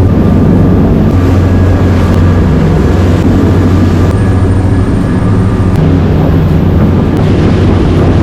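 Boat engine running steadily underway, a loud low drone with a few steady higher tones over it.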